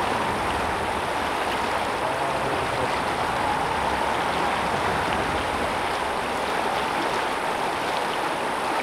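Fast, shallow river running over a rocky bed: a steady rushing of water.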